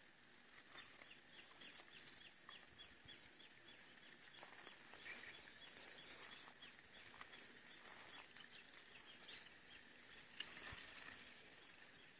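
Near silence: faint open-air ambience with a bird giving a run of quiet, evenly spaced high chirps, about two or three a second, for the first half, then a few scattered light clicks.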